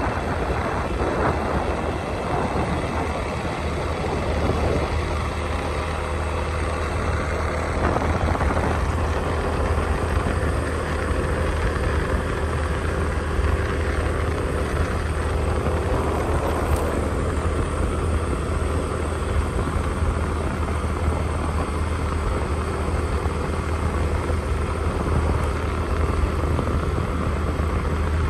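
Steady low rumble of a vehicle driving along a concrete road, engine and tyre noise heard from on board.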